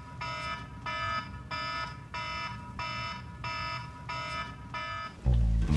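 Smartphone alarm ringing: a repeating electronic chime pattern at about two pulses a second. Near the end it cuts off as a sudden, much louder low sound begins.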